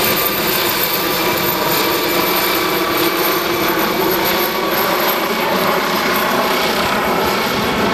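MD Explorer air ambulance helicopter, a twin-turbine NOTAR type with no tail rotor, flying low overhead. Its rotor and engines make a loud, steady drone.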